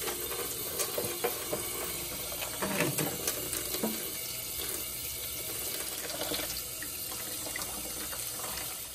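Cold water running from a kitchen tap into a stainless steel sink, splashing over hands and a plate as soil is rinsed off a lettuce seedling's roots. The flow is steady, with small spatters, and shuts off right at the end.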